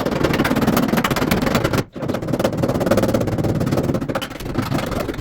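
Pneumatic hammering tool rattling in rapid strokes against the truck's sheet metal, in two long runs with a short break about two seconds in.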